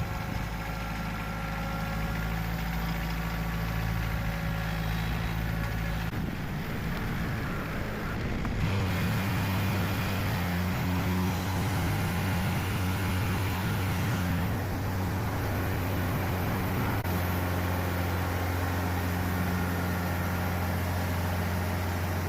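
Tractor engine running steadily, its engine speed shifting a few times as it works the loader.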